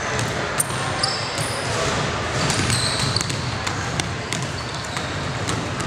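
Several basketballs bouncing on a hardwood gym floor, irregular overlapping thuds, with a few short high squeaks of sneakers and a general murmur of players.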